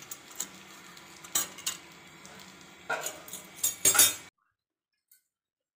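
Steel bowl being lifted out of an aluminium kadai of chicken with a steel utensil, metal knocking and clinking on metal: a few light clinks, then a louder clatter about three to four seconds in, before the sound cuts off abruptly.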